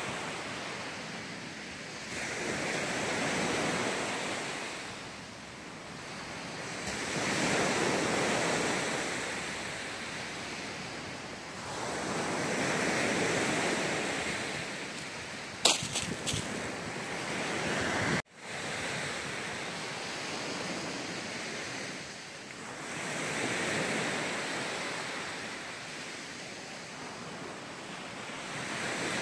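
Sea surf breaking on a sandy beach, rising and falling in slow swells about every five seconds, with wind on the microphone. About halfway through there is a short cluster of sharp clicks, and soon after a sudden brief drop-out.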